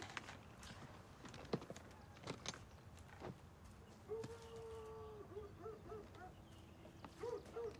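Faint footsteps and knocks in a quiet room. About four seconds in, a faint held call of about a second is heard, followed by a few short wavering notes, and two more short notes come near the end.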